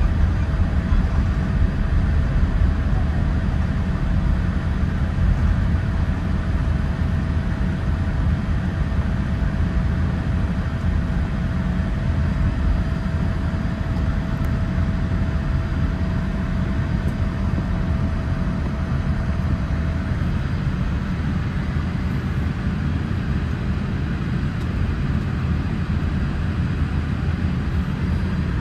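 Steady low rumble of cabin noise inside a Boeing 787-8 airliner, with a faint steady tone running alongside that stops about two-thirds of the way through.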